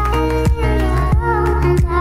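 Background music with a steady beat, a drum hit about every two-thirds of a second over a held bass and melody.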